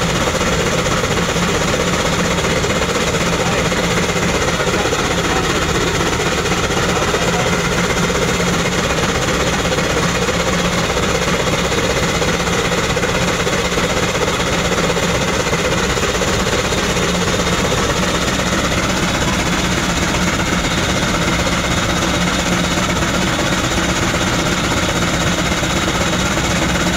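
Antique steam traction engine running steadily under load, driving a large generator through a long flat belt. A steady, dense mechanical running noise that does not change.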